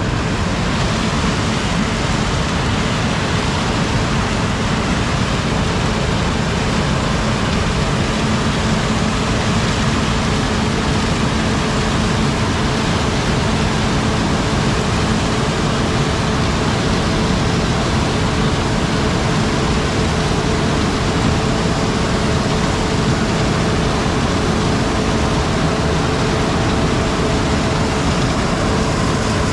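Heavy vehicle engine running steadily under way, a constant drone with a faint steady hum.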